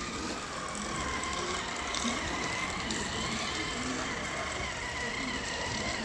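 Battery-powered remote-control toy tractor driving across a concrete floor: the steady whine of its small electric motor and gears, wavering slightly in pitch.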